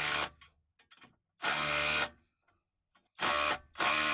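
Brushless cordless impact wrench run in short bursts on its full-power setting, hammering the nuts of a new exhaust clamp tight: one burst ending just after the start, then three more, each about half a second long.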